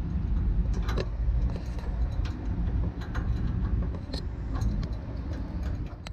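Scattered small metal clicks and clinks of fittings and tools being handled at a truck trailer's air brake chamber, over a steady low rumble.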